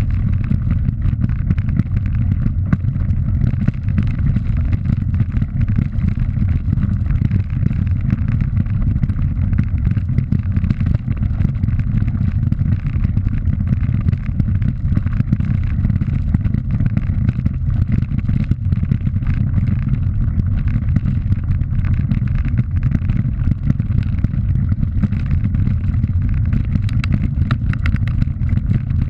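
Steady low rumble of wind buffeting the microphone of a camera moving along a gravel track, mixed with tyre noise on the loose stones. Small clicks and rattles from the rough surface come through, more of them near the end.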